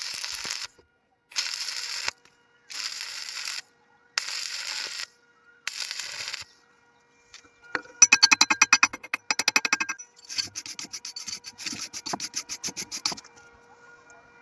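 An arc welder firing in six short hissing bursts, each under a second long and about a second and a half apart, as in tack welding. This is followed by about five seconds of loud, fast ticking and scraping of metal on the workpiece.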